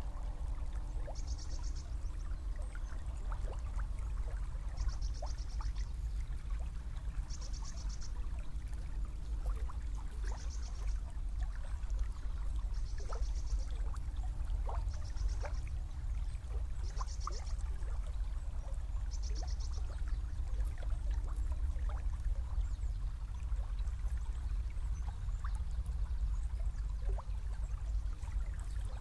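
Small river flowing: a steady rush of water with small gurgles and drips. A high-pitched, rapidly pulsed chirp repeats about every two seconds through the first two-thirds, then stops.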